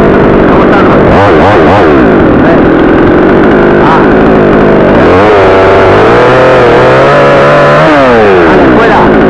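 62cc gasoline chainsaw running loud, revved up and down as it cuts branches during tree pruning; the engine climbs about five seconds in, holds high, then drops back near eight seconds.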